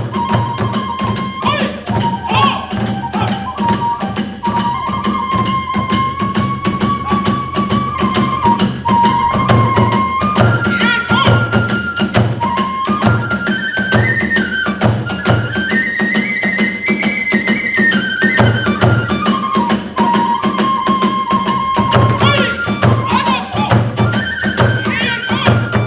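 Hiroshima kagura hayashi music: a high bamboo flute melody moving in held steps, over a steady drum beat and rapid small hand-cymbal strokes.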